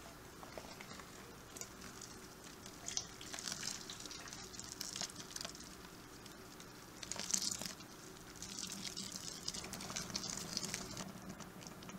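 Sparge water trickling from a tube onto a bed of mashed grain and running down through the grains: a faint, uneven hiss with a few brief louder swells.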